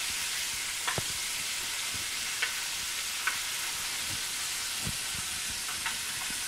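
Cornstarch-coated chicken pieces deep-frying in a saucepan of hot oil as they are stirred with a metal spoon: a steady sizzle with a few light clicks and pops.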